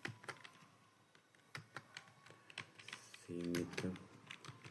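Computer keyboard keys being typed in an irregular run of separate clicks, about two or three a second.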